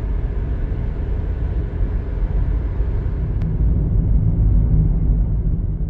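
Steady low rumble of road and engine noise inside a moving car, growing a little louder about halfway through.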